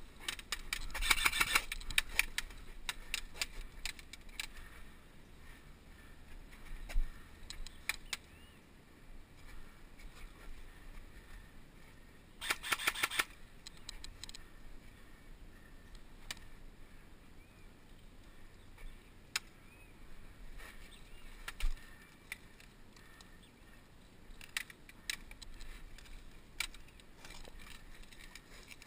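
Airsoft guns firing on a field: a short rapid burst about a second in and another around twelve seconds in, with scattered single shots between them.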